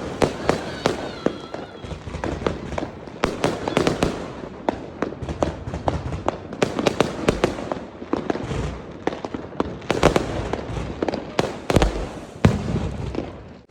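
Fireworks going off in a dense barrage: sharp bangs and cracks following each other several times a second over continuous crackling, with a few heavier booms in the second half.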